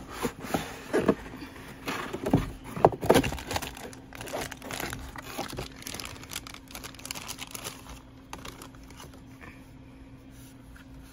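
A cardboard toy box is handled and opened, then a clear plastic bag crinkles as the toy is pulled out of it. The loudest knocks and rustles come in the first few seconds, then the crinkling grows softer and dies away.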